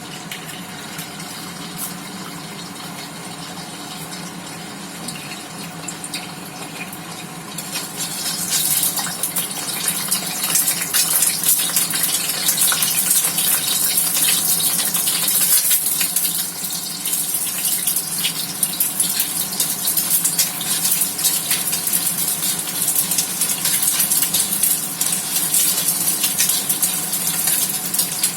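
Egg frying in hot oil in a pan: a faint hiss over a steady hum, then a loud, dense crackling sizzle from about eight seconds in.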